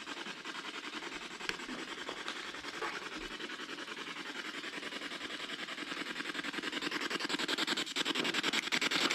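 Steady hiss of static chopped into rapid, even pulses, about six a second, growing gradually louder, with a few faint clicks.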